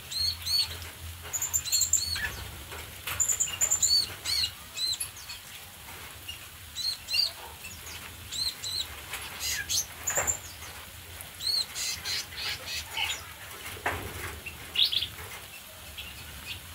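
Flock of small aviary birds chirping, with many short, arched, repeated calls and now and then the flutter of wings as birds take flight.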